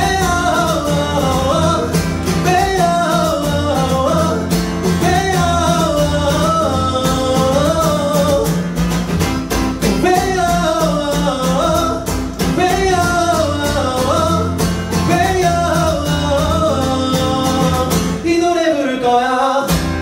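A man singing a melody over a strummed acoustic guitar, in a live unplugged pop song.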